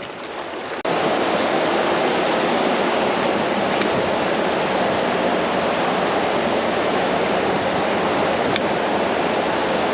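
Creek water rushing steadily, coming in loud and sudden about a second in after a quieter moment.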